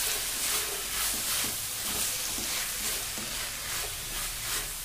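Diced vegetables sizzling as they stir-fry in a pan, stirred with a wooden spatula, with a faint scrape about every half second over a steady hiss.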